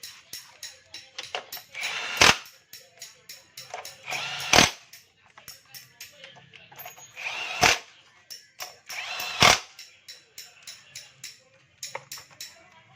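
Background music with a light, steady tapping beat, cut four times by loud, short rushes of noise about half a second long each.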